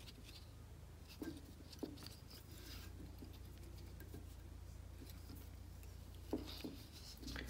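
Faint handling noises of hands wrapping thread from a bobbin onto a jig hook held in a tying vise: a few light ticks and taps, twice in the first two seconds and twice more near the end, over a low steady hum.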